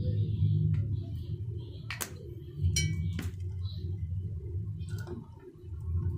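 Glass bottles clinking against each other a few times, one clink ringing briefly, over a steady low background rumble.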